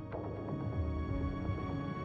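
Outro music: held notes with a sharp hit just after the start, the notes ringing on after it.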